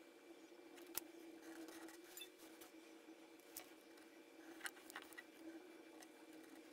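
Near silence: a few faint clicks and light handling noise from hands pressing cotton rope onto the edge of a wooden round, over a steady low hum.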